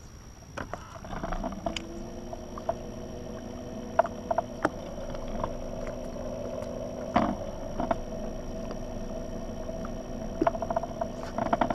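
Electric trolling motor on a bass boat running steadily, a hum of several steady tones that starts about a second in, with scattered clicks and knocks from rods and reels being handled on the deck.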